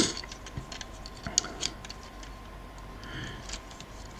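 Plastic Transformers Turbo Tracks figure being handled and transformed: scattered light clicks and taps of plastic parts and joints, a little louder right at the start.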